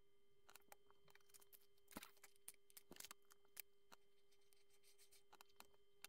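Faint scattered clicks and taps of small plastic Lego pieces being handled and pressed together, the strongest about two seconds in, over a faint steady hum.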